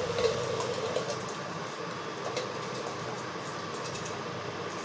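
A steady hum and hiss from a steel pot of water heating toward the boil on an induction cooktop, with a few faint clicks as the steel lid is handled.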